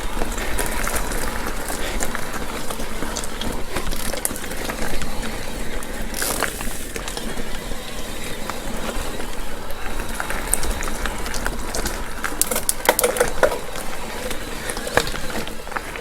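Mountain bike rolling along a dirt trail: steady tyre and ground noise with frequent small clicks and rattles from the bike over bumps.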